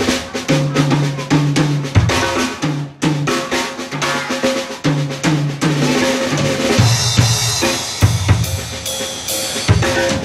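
Live jazz band playing an instrumental passage: drum kit with snare and bass drum strokes over a repeating low electric bass figure, with a wash of cymbals from about seven seconds in.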